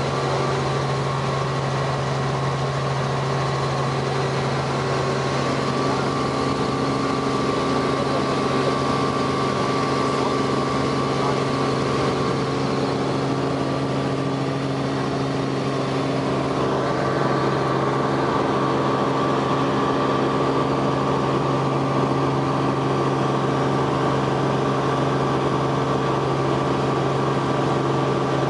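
Robinson R44 helicopter in flight, heard inside the cabin: the piston engine and rotors make a loud, steady drone with a few unchanging tones over a broad rush of noise.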